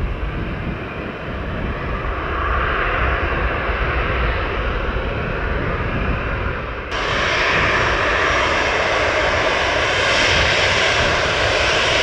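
Jet airliner engines running, a steady rushing noise over a deep rumble; about seven seconds in it suddenly becomes brighter and louder.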